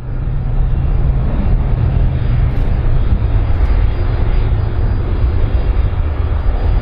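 Airplane engine noise: a steady, loud, deep rumble.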